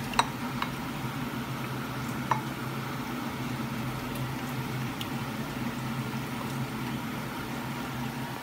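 A metal spoon stirring shrimp in liquid in a ceramic bowl, clinking against the bowl three times in the first few seconds, the first clink the loudest, over a steady low hum.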